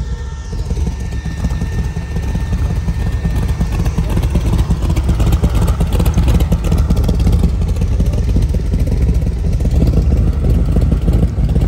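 Hot rod engine with open exhaust headers running loud and close, its rapid firing pulses getting louder from about four seconds in as the T-bucket roadster drives up.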